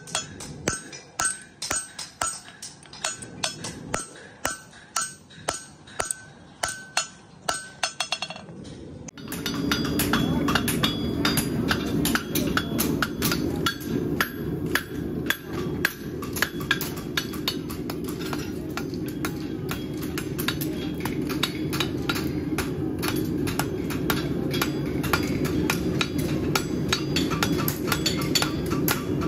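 Hand hammers striking hot steel horseshoes on anvils, each blow ringing. About nine seconds in the sound changes abruptly to many hammers going at once, close together and overlapping, over a steady rushing noise.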